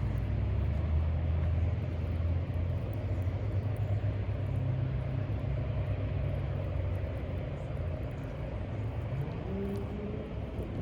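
Steady low rumble with a noisy hiss above it, easing off slightly near the end.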